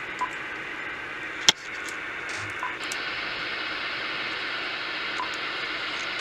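Johnson Viking 4740 CB radio receiving on AM: steady hiss of band static from its speaker, with one sharp click about a second and a half in. Just under three seconds in the hiss turns brighter and stays that way.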